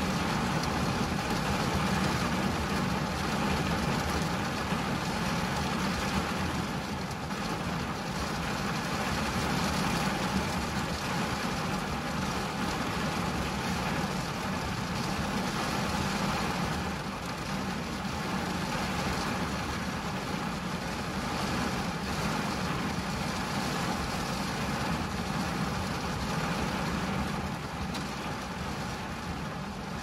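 Rain falling on a car's windshield and roof, heard from inside the cabin as a steady, even hiss with a low rumble underneath.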